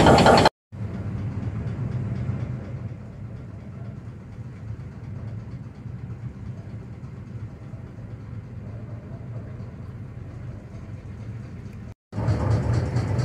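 Steady low engine drone heard from inside a car's cabin on a chain ferry's vehicle deck. It cuts out briefly near the start and again near the end, where a louder engine rumble comes in.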